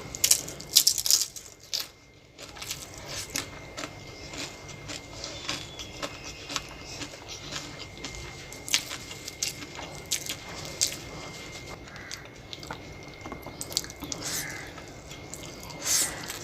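A person chewing and eating spicy chow mein close to the microphone. Wet, squishy mouth sounds are mixed with short crisp clicks and crunches, with a few louder bursts about a second in and near the end.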